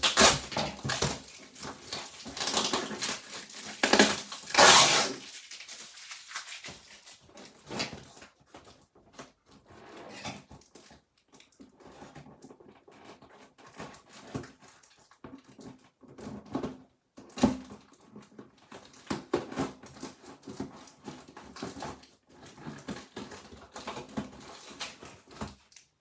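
Packing tape being cut with scissors and ripped off a cardboard box: several loud rips in the first five seconds, then quieter scattered crackling of tape and cardboard handling.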